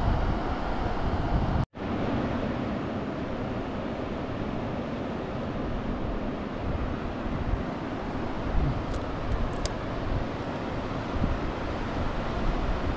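Steady rushing of a fast river, with wind gusting on the microphone. The sound cuts out for an instant a little under two seconds in.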